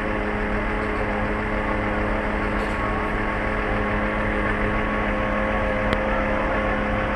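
An engine running steadily at a constant speed: an even drone with a fixed hum over a haze of noise, and no change in pitch.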